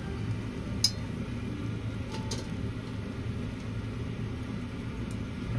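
Steady low rumble of a table-grill extraction fan, with two short sharp clicks, one just under a second in and one about two and a half seconds in.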